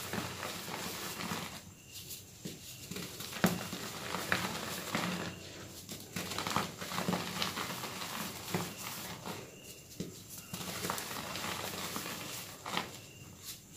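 Green-dyed reformed gym chalk blocks crushed in bare hands, crunching and crumbling into dusty powder with irregular small cracks and the patter of falling bits. The sharpest crack comes about three and a half seconds in, with brief lulls between squeezes.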